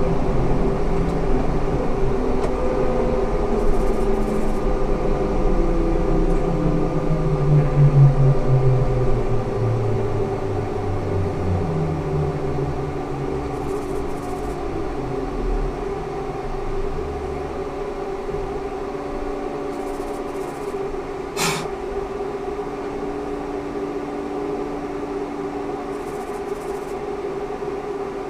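Ikarus 280T GVM trolleybus: the whine of its electric traction drive falls steadily in pitch as the vehicle slows, then gives way to a steady electrical hum. A single sharp click comes about three-quarters of the way through.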